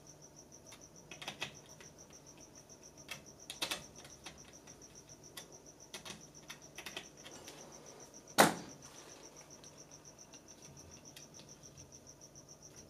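Faint clicks and taps of fingers and a small tool working the belt clamps on a 3D printer's X carriage as the timing belts are loosened, with one sharper click about eight seconds in. A faint, high-pitched pulsing tone runs steadily underneath.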